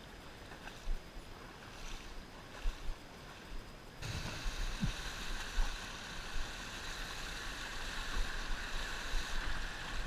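Shallow river water: quieter splashing and lapping with a few knocks at first. About four seconds in it switches abruptly to a louder, steady rush of water running over rocks in a small riffle, with a few low thumps just after the change.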